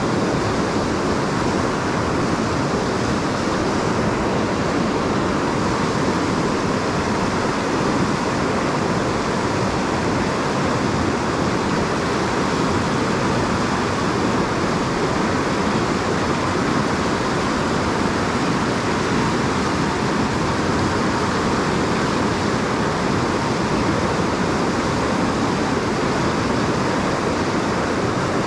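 Fast, high-flowing creek water rushing steadily, an even wash of noise with no breaks.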